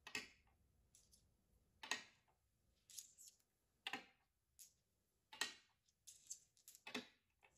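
Go stones clicking down one after another onto a Go board as moves are played out, a sharp click about every second, some fainter than others.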